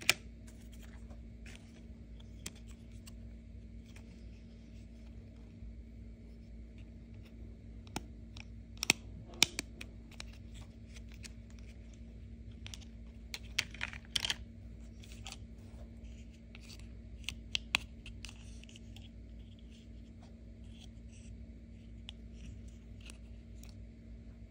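Hard plastic action figures being handled: scattered light clicks and taps as they are picked up, turned and set down, with a few sharper clacks. A faint steady hum runs underneath.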